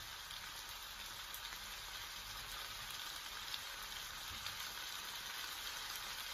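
Sliced bitter melon and onion sautéing in oil in a frying pan: a steady, gentle sizzle with a few faint pops.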